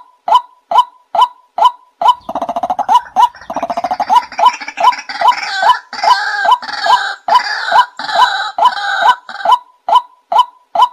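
White-breasted waterhen calling: a loud, evenly repeated "wak" note about twice a second. From about two seconds in until shortly before the end, a rapid stuttering trill and harsher, fuller calls from a second bird overlap the steady series, in the waterhens' chorus.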